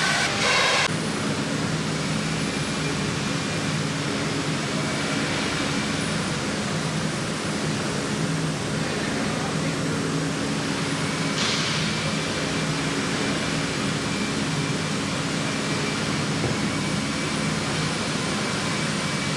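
CNC gantry router running with a steady machine hum and a faint steady whine. There is a brief hiss about eleven seconds in.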